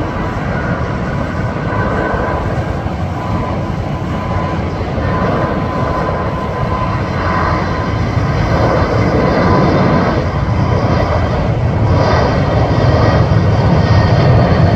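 Twin-engine jet airliner's engines at takeoff thrust during the takeoff roll and liftoff, a steady rush that grows louder, with a thin whine in the first half.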